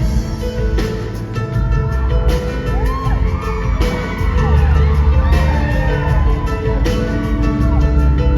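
Live concert music recorded from the audience: an instrumental passage with a heavy bass pulse and held notes, with high gliding tones arching up and down through the middle.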